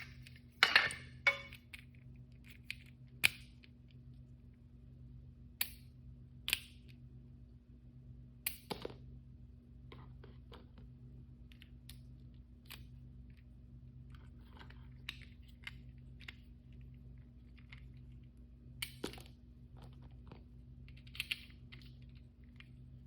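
Hands handling blind-bag packaging and small plastic toys: scattered light clicks and taps, with brief plastic crinkles about a second in and again near the end, over a faint steady hum.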